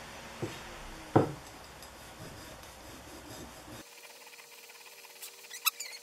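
Metal hand tools handled on a workbench: two sharp knocks, the second louder, then a few small scraping clicks near the end as a steel file is worked on a cloth.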